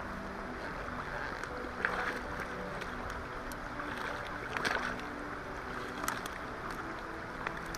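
Steady rush of river water and wind noise, with a few brief sharp sounds near the water's edge, under background music.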